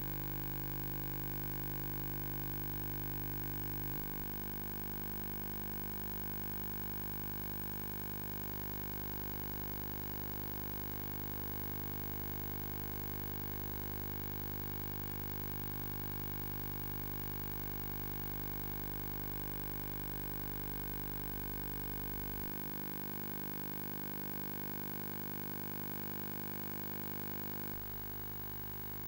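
Steady electrical hum with hiss and no other sound: the noise floor of a silent film track. Its tone shifts slightly about four seconds in and again near the end.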